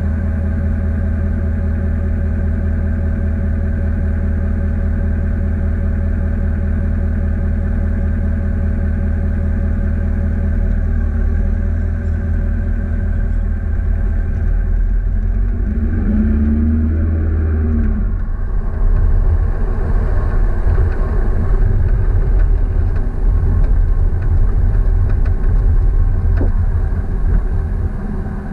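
An engine running steadily, its even hum giving way to a rougher, somewhat louder sound about eighteen seconds in.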